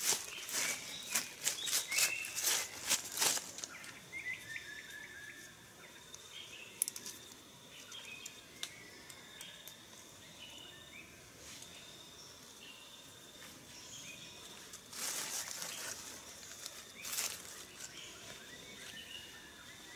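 Dry leaves and twigs rustling and crackling in quick bursts as a hand works in the forest-floor litter, heaviest in the first few seconds and again briefly about three-quarters of the way through. In between, forest birds chirp over and over, with a quick falling run of notes about four seconds in and a steady high tone underneath.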